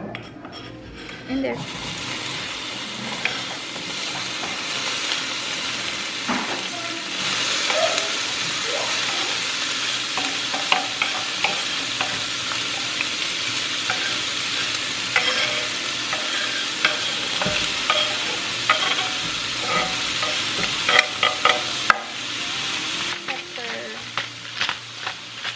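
Diced bell peppers sizzling in a hot stainless steel skillet. The sizzle starts suddenly about a second and a half in and grows stronger, while a utensil scrapes and knocks against the board and pan as the peppers are pushed in and stirred. The sizzle eases near the end under a run of sharp clicks from a pepper grinder being turned over the pan.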